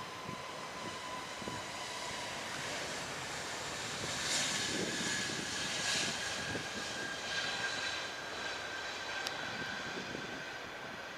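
Twin jet engines of an Airbus A320-family airliner at takeoff thrust during its takeoff roll: a steady jet rush with a high whine, swelling as the aircraft passes about four to six seconds in.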